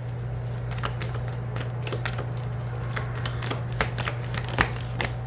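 A deck of tarot cards being shuffled by hand: a quick, irregular run of soft card clicks and slaps, with a sharper snap a little after the middle, over a steady low hum.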